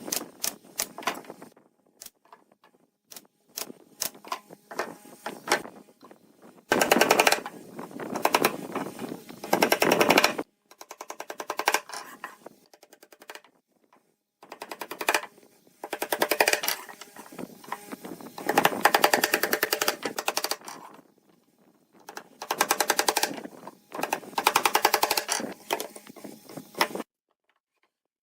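A power tool rattling rapidly in three bursts of several seconds each, with scattered knocks between them. It stops about a second before the end.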